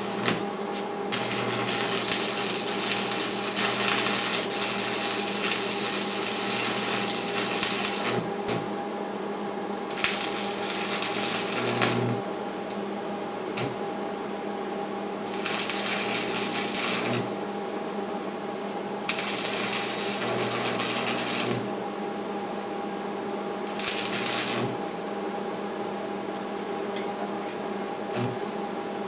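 Arc welding: the arc crackles and sizzles in five runs of weld, the first about seven seconds long and the later ones a second or two each, as a steel fender washer's centre hole is filled with weld. A steady welder hum runs underneath.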